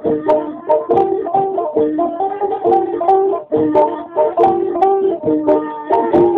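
Batak gondang music: a sarune reed pipe plays a melody of held, stepping notes over the quick plucked notes of the hasapi, the two-string Batak boat lute.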